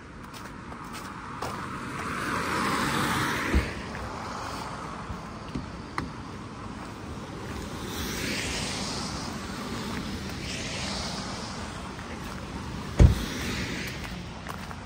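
Cars passing one after another, their road noise swelling and fading in several waves. There are two dull thumps, one a few seconds in and a louder one near the end.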